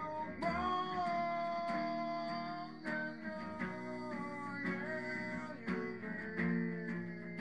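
Rock guitar music: sustained lead guitar notes that bend and slide in pitch over lower strummed chords, with a few sharp attacks.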